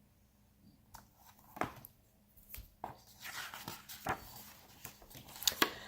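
Faint paper rustling and a few soft taps and clicks as the pages of a picture book are handled and turned.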